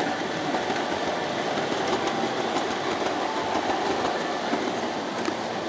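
O gauge tinplate model train, coaches running past over three-rail track: a steady metallic rattle and whirr of wheels, with faint scattered clicks.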